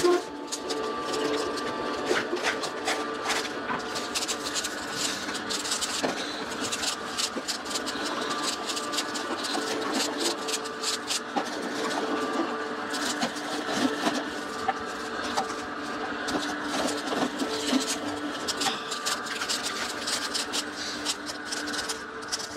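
Vertical slow juicer running steadily, its motor humming while the auger crushes leafy greens with a crackling, clicking crunch.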